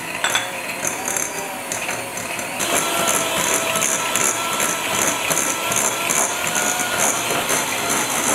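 Electric hand mixer running, its beaters churning butter and brown sugar in a glass bowl, under background music with a steady beat.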